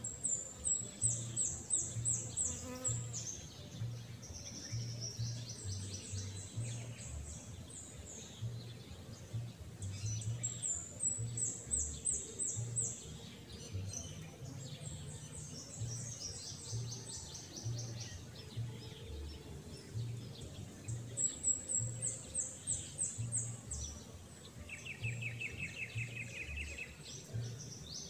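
Birds singing outdoors: a high, rapid trill of many repeated notes comes back about every ten seconds, with other high twittering phrases between. A lower trill joins near the end.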